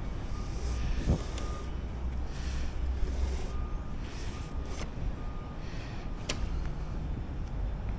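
Electronic beeper sounding short beeps at one high pitch, in two runs with a pause of about a second and a half between, over a steady low rumble.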